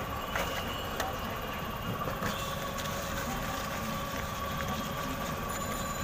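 Steady low rumble of street noise with a constant high-pitched hum over it, and a few faint clicks.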